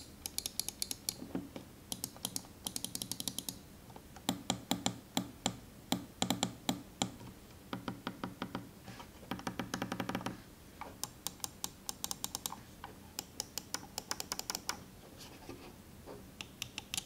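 Razer Basilisk Mercury White gaming mouse's buttons clicking in a click test, in runs of rapid, crisp clicks with short pauses between them.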